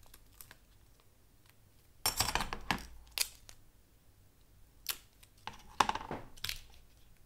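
Pliers and small parts being handled and set down on a workbench cutting mat: a short rustling scrape about two seconds in, then scattered clicks and light knocks, the sharpest near six seconds.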